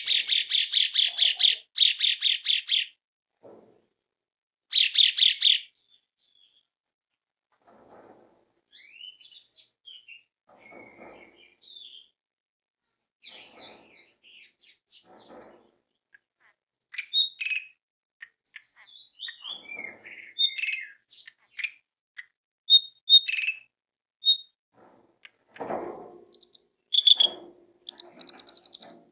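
Javan pied starling (jalak suren) singing. It opens with loud, fast rattling phrases and repeats the rattle briefly a couple of seconds later. A long, quieter run of varied whistles and chattering notes follows.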